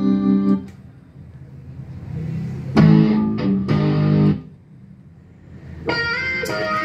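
Recorded music from a Yamaha CDX-390 CD player, played through a Technics SU-Z2 amplifier and Wharfedale Diamond 8.2 speakers, heard in short snatches as tracks are skipped. One track cuts off about half a second in, a short stretch of music plays around the middle, and a new track starts near the end.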